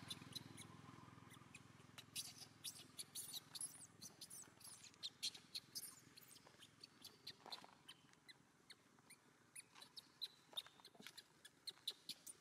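Near silence broken by many faint, short, high-pitched squeaks and clicks, a few every second, typical of a baby long-tailed macaque squeaking.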